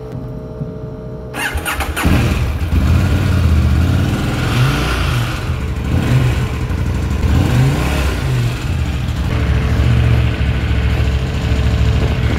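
A KTM Duke motorcycle engine is started about a second and a half in: a short burst of cranking, then the engine catches and runs, with its pitch rising and falling several times as the throttle is blipped.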